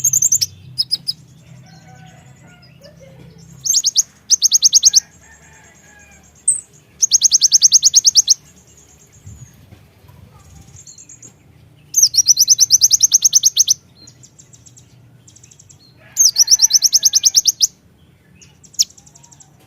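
Konin (kolibri ninja) sunbird singing: four loud bursts of rapid, high trilled notes, each about one and a half seconds long, with short high chirps in between.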